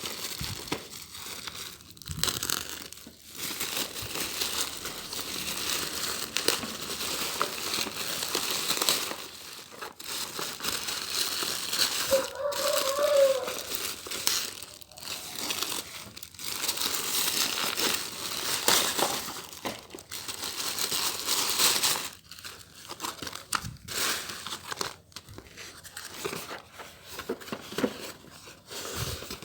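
Plastic and paper parcel packaging being crinkled, handled and torn open during an unboxing, in uneven stretches with short pauses.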